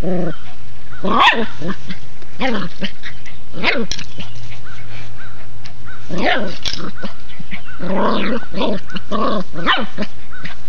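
Golden retriever puppy barking: a string of short, high puppy barks, spaced a second or so apart at first and coming in quicker succession near the end.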